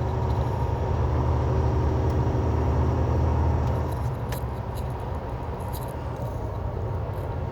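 Semi truck's diesel engine and road noise heard inside the cab as a steady low drone, easing a little about four seconds in as the driver lets off the throttle to lock the inter-axle differential.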